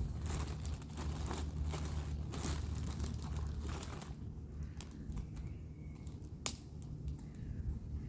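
Close crinkling and rustling handling noise, dense for the first few seconds and sparser after, with one sharp click about six and a half seconds in, over a steady low rumble.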